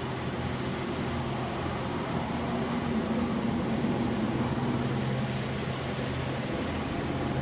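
Swollen floodwater rushing over a weir, a steady wash of water noise, with a steady low mechanical hum beneath it.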